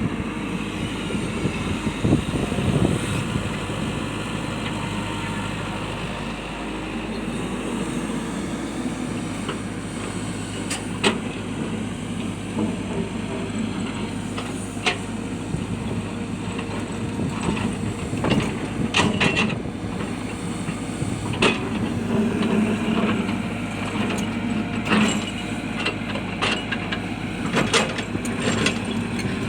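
Hitachi excavator's diesel engine running steadily, with scattered sharp clanks and knocks as it works rocks, more frequent in the second half.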